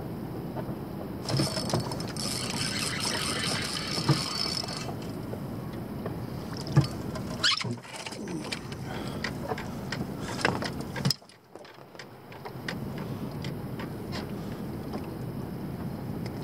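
Fishing gear being handled in a boat: scattered clicks, knocks and rattles over a steady low background noise, with a few seconds of hiss near the start. The sound drops away abruptly for about a second past the middle.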